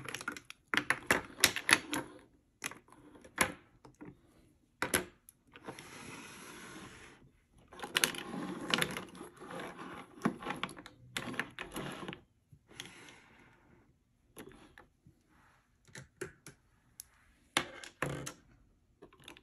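Lipstick cases clicking and clacking as they are pulled out of a clear acrylic organizer and set down one after another on a wooden tabletop, in irregular runs of sharp taps. There is one brief scrape about six seconds in.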